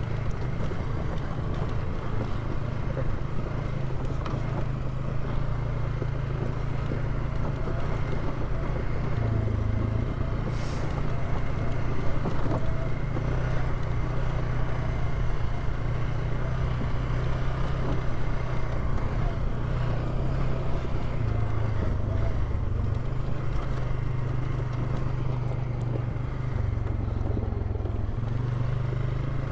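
Polaris ATV engine running steadily as it rides a dirt trail, its note shifting slightly up and down.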